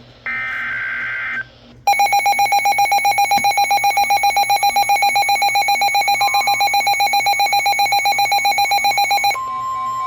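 Emergency Alert System alert tones off NOAA Weather Radio. It opens with the end of a SAME digital header burst, a buzzy two-tone data screech lasting about a second. From about two seconds in comes a loud, rapidly pulsing alarm beep, and near the end the steady 1050 Hz weather radio alert tone takes over, announcing a new severe thunderstorm warning.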